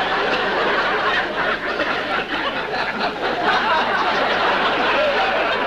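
Television studio audience laughing: a long, steady wave of crowd laughter following a joke's punchline.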